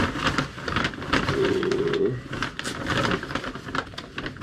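Plastic food packaging being handled: a run of small clicks and crinkles, with a short steady hum about a second and a half in.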